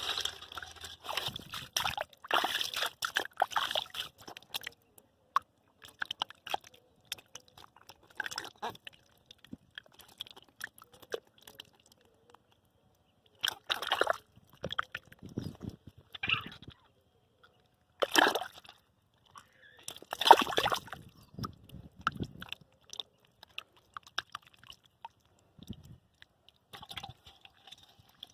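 Muddy water sloshing and splashing in irregular bursts, with short quiet gaps between, as hands grope through a shallow mud hole for catfish.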